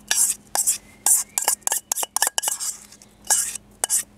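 A utensil scraping and clinking against an iron pan in quick, irregular strokes as cooked pasta is tossed and mixed in it.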